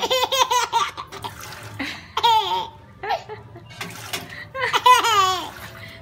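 A baby giggling in three bursts: a quick run of giggles at the start, a short one about two seconds in, and a longer laugh about five seconds in. A small fountain's water runs faintly under it.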